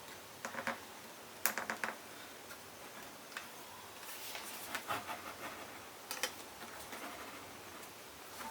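Plastic GoPro mount and buckle being handled on a helmet chin mount: scattered short plastic clicks in small clusters, with scraping and rubbing in between, as the fitting is wiggled to test that it is strong enough.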